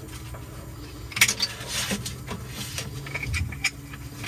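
Handling noise from a nylon tool belt and its quick-release buckle: a sharp click about a second in, then a short rustle and a few lighter clicks.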